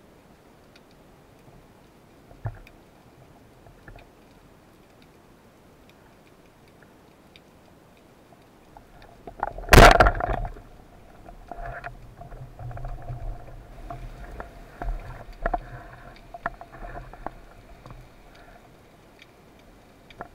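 Underwater, faint hiss and small clicks, then a band-powered speargun firing with one loud sharp crack just before the halfway point. After it come irregular knocks and rattles of the spear shaft and line as the speared fish is handled.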